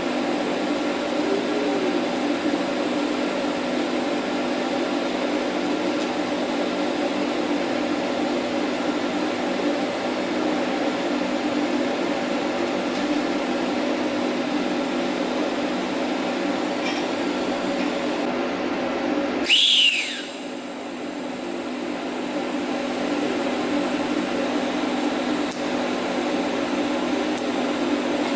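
A steady machine hum with a hiss, broken about twenty seconds in by a brief sharp noise with a falling whine, after which the hum drops and slowly builds back.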